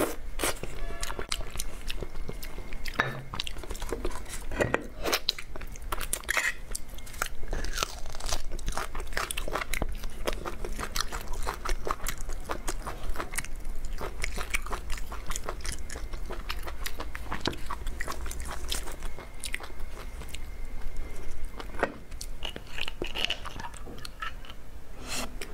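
Close-miked eating sounds: a person chewing and crunching food from sauce-glazed beef bones, with many sharp wet clicks and crunches in an uneven rhythm.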